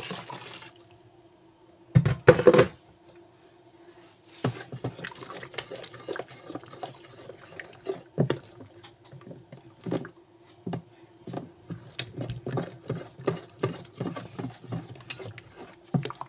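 Water poured into a plastic tub of foamy liquid soap mixture, then a wooden stick stirring the mixture, with irregular splashes and knocks against the tub. A loud clatter comes about two seconds in.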